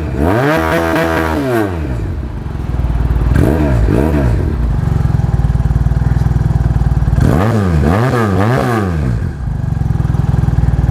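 Twin-cylinder motorcycle engine of a Thunder R3 (Yamaha R3 replica) being revved while standing. It gives one long rev and one short blip, settles to a steady idle, then takes three quick blips in a row near the end and drops back to idle.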